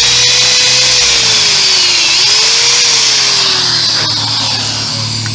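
Electric drill running under load, cutting into a mount bolt hole in a small bike engine's cast aluminium case. The motor's whine dips about two seconds in as the bit bites, recovers, then sags and eases off near the end.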